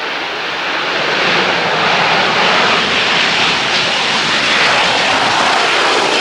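Dash 8-200 turboprop airliner's twin engines heard as a loud, steady rush of engine noise that swells about a second in.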